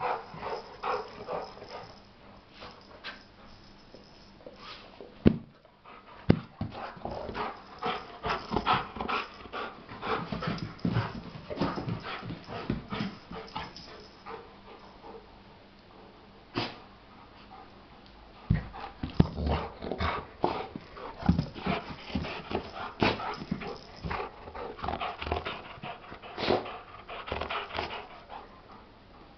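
Two golden retrievers playing with plush toys, making dog sounds in play, with scattered sharp knocks and handling noises throughout.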